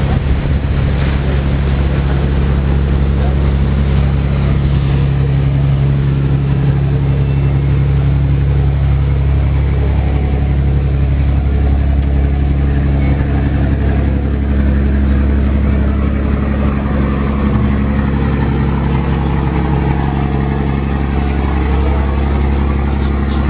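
Amazon riverboat's engine running steadily: a constant low drone with a steady hum.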